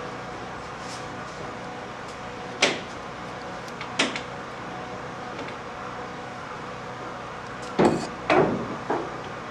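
A few sharp knocks over a steady background hum: two single knocks, then a quick cluster of louder bangs near the end.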